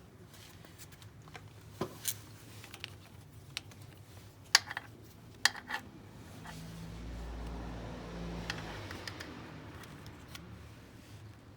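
A handful of sharp clicks and light knocks, then a low steady hum for about two seconds.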